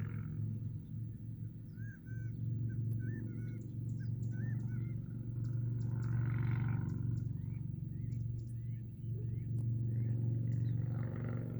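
Small birds calling in a run of short chirps with upturned ends, with softer calls a few seconds later, over a steady low hum.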